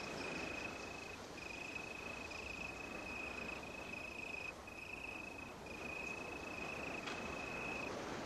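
Crickets chirping in a steady run of short high trills, about one a second, over a soft even hiss of outdoor ambience.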